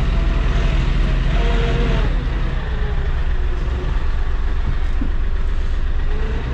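Tractor's diesel engine running steadily, heard from inside the closed cab, while the front loader carries a round bale.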